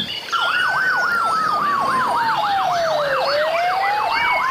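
Ambulance siren wailing in fast rising-and-falling sweeps, about four a second, layered with a slower siren tone that glides down and then climbs back up. It starts a moment in.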